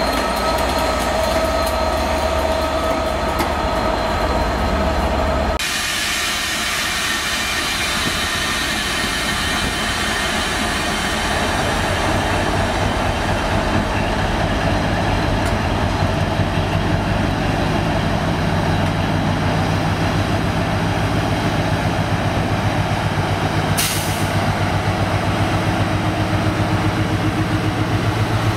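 Class 67 diesel locomotive passing with rolling wheel and rail noise. About six seconds in it cuts to a Class 60 diesel locomotive with its eight-cylinder Mirrlees engine hauling a heavy train of tank wagons slowly along the platform, its low engine hum building as it draws near.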